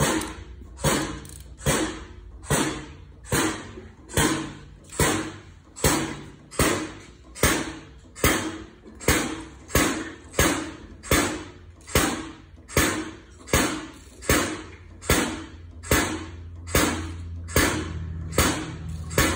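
Hand wrench clicking in a steady rhythm, a bit more than one sharp click a second, as a six-cylinder diesel engine on a stand is turned over by hand during oil priming. A low steady hum sits underneath and grows louder near the end.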